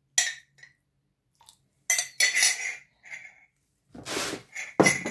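Metal spoon clinking against a small glass jar of ice water while spoonfuls are added to a chopper bowl: a handful of short clinks with a brief ring, then a louder knock near the end.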